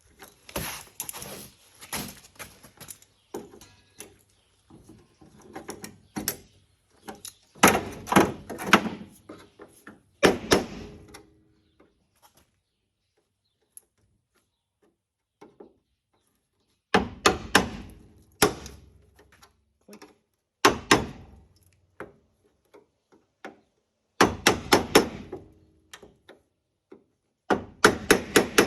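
Bursts of knocks and clatter, like things being handled and set down or struck, coming in groups with quiet gaps between them.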